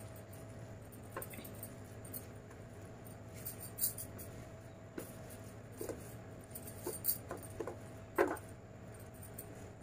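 A hand mixing and squeezing rice and chicken on a steel plate: scattered soft squishes and small clicks of fingers and food against the metal, the loudest about eight seconds in, over a steady low hum.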